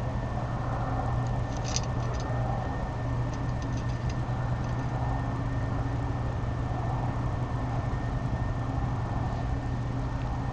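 A steady low hum with a thin high whine above it runs throughout. Over it come a few faint clicks and rustles, most between about one and a half and five seconds in, from an owl tearing at a mouse in a tray of bedding.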